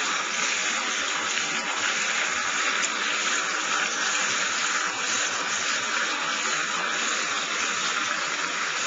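Bathtub tap running, a steady rush of water pouring into the bath.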